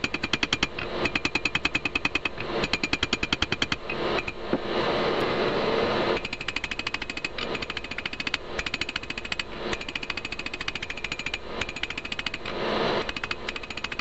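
Hand hammer striking red-hot steel on an anvil in fast runs of about seven blows a second, forging out a connecting rod into a knife blade, with the anvil ringing under each blow. The blows are heavier in the first few seconds and lighter and quicker after the middle, with short pauses between runs.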